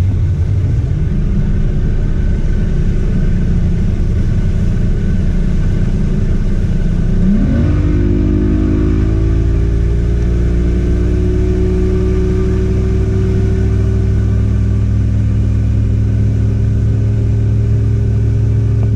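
A 1984 Grady White Overnighter's two-stroke outboard engine running under way, just restarted after being flooded. About seven seconds in it is throttled up: the pitch climbs quickly, then holds steady at a higher speed.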